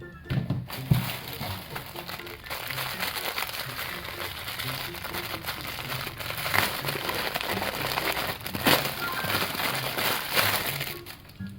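Plastic packaging crinkling and crackling as a toy is unwrapped, a dense run of rustles with a few sharper snaps, the loudest about a second in and another near the end.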